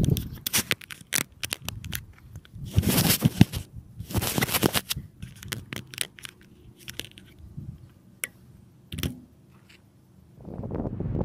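Gravel crunching and scraping close to an FPV drone's action-camera microphone as the drone is handled on the ground, with sharp clicks and knocks. There are two louder scraping spells a few seconds in, then it goes quiet. Near the end, a low wind rumble on the microphone starts.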